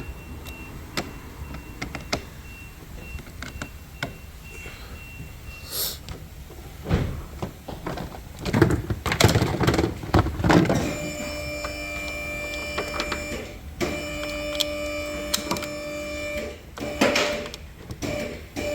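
Car electrics running on a flat battery: a faint repeated high beep, then clunks and rattles, then a steady electrical buzzing tone that drops out briefly and starts again before stopping.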